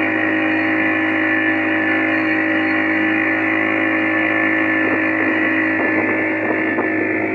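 Boat engine running at a steady speed: a constant drone that does not change in pitch or loudness.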